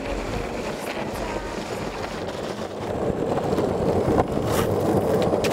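Longboard wheels rolling on rough asphalt: a steady rumble that grows louder about halfway through, with a few light clicks.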